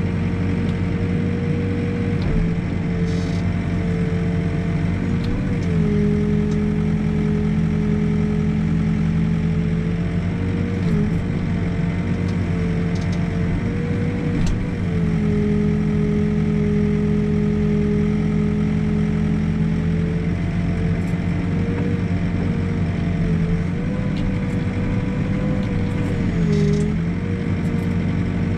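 Backhoe loader's diesel engine running steadily as the backhoe arm digs and levels dirt, heard from the operator's seat. A steady whine over the engine dips briefly in pitch several times, and a lower hum comes and goes.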